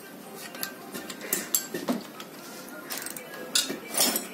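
Hand tools and loose metal parts clinking against a stripped two-cylinder Tata Ace Mega engine block during dismantling: a string of irregular sharp metallic clinks, loudest near the end.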